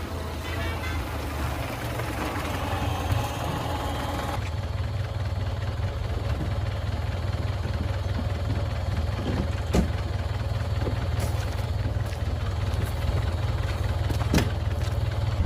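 Low, steady rumble of a car engine running, with two sharp clicks, one about ten seconds in and one near the end.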